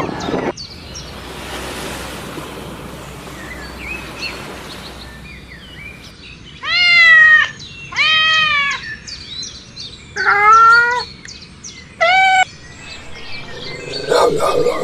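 A cat meowing four times, loud calls about a second long or shorter, each rising then falling in pitch. Before them, small birds chirp faintly over a soft hiss.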